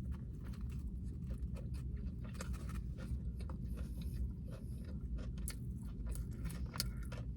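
Close-miked chewing of a taco: a string of small wet mouth clicks and soft crunches, irregular and unevenly spaced, over a low steady hum.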